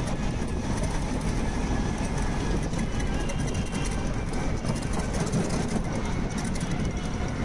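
Wind and road noise from riding in an open battery e-rickshaw through city traffic: a steady low rumble.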